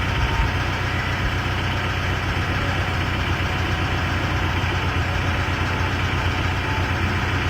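Engine running steadily at idle, with a constant low drone.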